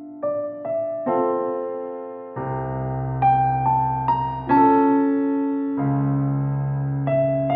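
Gentle piano music: single notes, then struck chords that ring and fade, a new chord every second or so.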